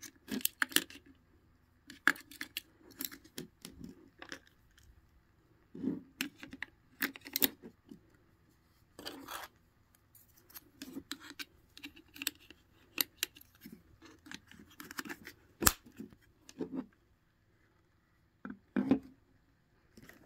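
AA batteries and the plastic battery compartment of an LED lamp base being handled: irregular clicks, scrapes and short rattles, with one sharp click about three-quarters of the way through.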